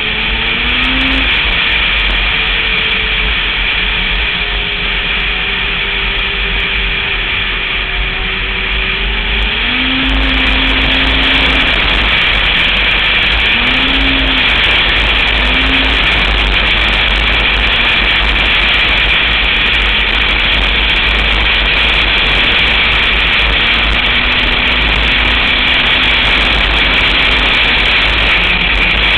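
Snowmobile running at trail speed: a steady, loud engine and track noise with a faint engine tone that drifts in pitch, growing a little louder about ten seconds in.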